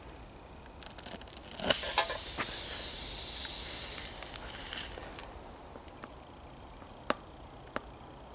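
A loud hiss of air escaping for about three seconds from the tubeless tire's puncture as the plug insertion tool is worked into it, preceded by a few small crackles. Two sharp ticks follow near the end.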